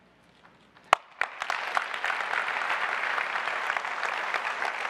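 Audience applauding: after a moment's hush, a single sharp clap about a second in, then many hands join and the applause holds steady.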